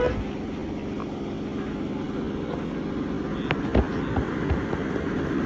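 Road traffic: vehicle engines running steadily, with a few sharp knocks about three and a half seconds in.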